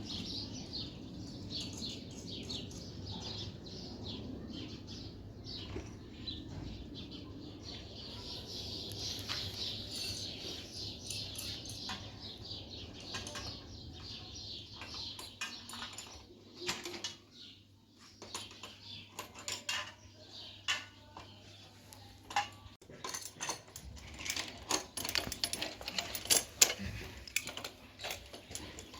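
Light metallic clinking and tapping, as of small metal objects being handled and set down: a busy run of small clicks early on, then sharper separate knocks in the last few seconds.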